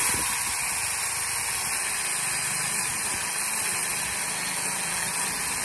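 Kuoki 36V cordless mini chainsaw running steadily, its chain cutting into a thin tree trunk: an even motor whir with the rasp of the chain in the wood.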